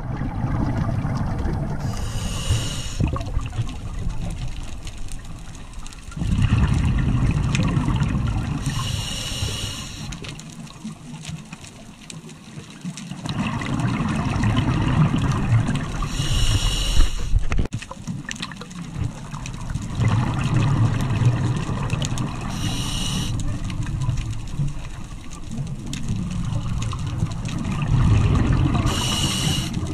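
Scuba diver breathing through a regulator underwater, in slow cycles about every seven seconds. Each breath has a short high hiss of inhaling, and then several seconds of low bubbling rumble as the exhaled air bubbles away.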